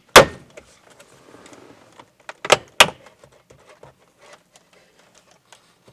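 Plastic retaining clips of a pickup's overhead console snapping loose as the assembly is pulled down from the roof: one sharp snap just after the start and two more about two and a half seconds in, with faint plastic clicking and rattling in between.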